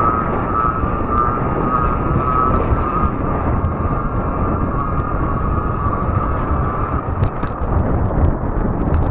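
Fat-tire e-bike on the move on asphalt: a steady rush of wind and tyre noise with a steady high electric-motor whine that fades about seven seconds in, plus a few sharp ticks.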